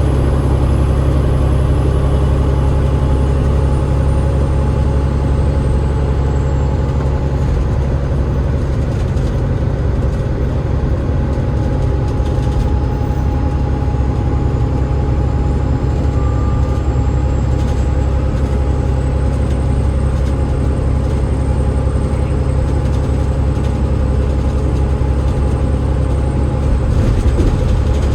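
Double-deck bus drivetrain (Cummins ISL8.9 diesel and ZF EcoLife automatic gearbox) running steadily on the road: a constant low drone, with a faint high whine that falls in pitch over the first several seconds and later rises a little.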